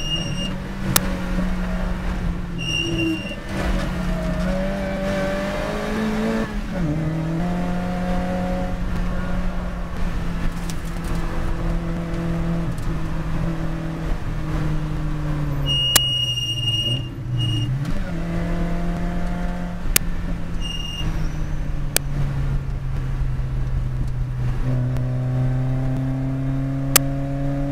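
Lotus Elise Cup R race car's engine heard from the cockpit, pulling hard under load with its pitch dropping and climbing through several gear changes. Short high electronic beeps sound a few times, and there are occasional sharp clicks.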